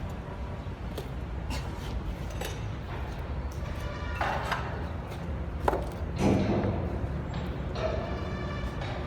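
Scattered sharp metallic knocks and clanks over a steady low rumble, with a louder clatter a little past the middle.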